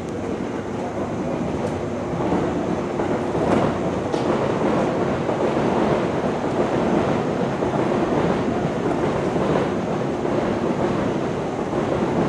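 JR East 183 series 1000 electric multiple unit pulling out of the station, a steady train running noise that grows louder about two seconds in, with occasional clacks of wheels over rail joints.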